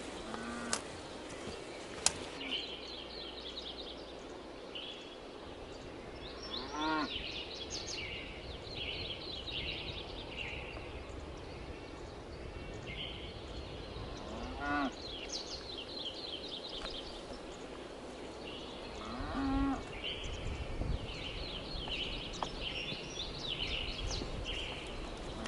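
Cattle mooing, three drawn-out rising calls about seven, fifteen and nineteen seconds in, over a continual background of high chirping.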